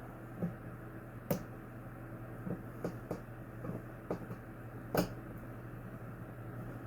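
Scattered light clicks and taps of something being handled, two of them sharper, about a second in and near five seconds in, over a steady low hum.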